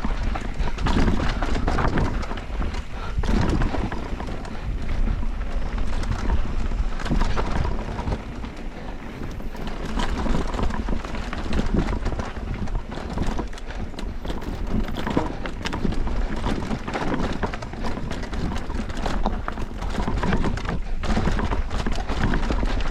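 Electric mountain bike riding down a rough bike-park trail: tyres rolling over dirt and rocks and the bike rattling with many small knocks, over a steady low rumble of wind on the microphone.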